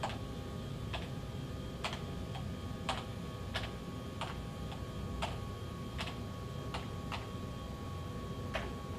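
Computer keyboard keys pressed one at a time: about a dozen separate clicks at an unhurried pace, roughly one every half second to a second, as digits are keyed in.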